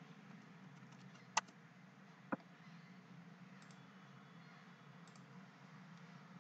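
Two sharp clicks from computer input about a second apart, then a few faint ticks, over a faint steady low hum.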